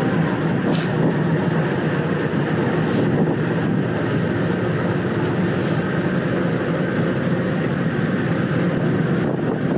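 Diesel-electric freight locomotive moving slowly past, its diesel engine running steadily.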